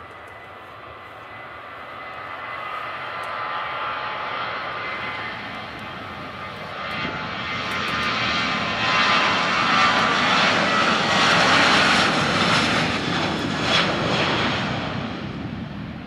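Twin CFM56 jet engines of a Boeing 737-800 airliner running loud as it rolls along the runway past the listener. The noise swells steadily, peaks a little past the middle and begins to fade near the end.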